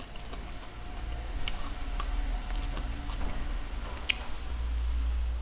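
Close-miked chewing and mouth sounds from a lapel microphone: scattered soft clicks, with a couple of sharper ticks, over a low rumble.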